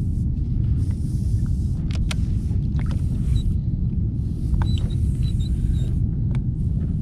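Wind rumbling on a small action camera's microphone, with scattered light clicks of the rod and baitcasting reel being worked while jigging a Sabiki rig.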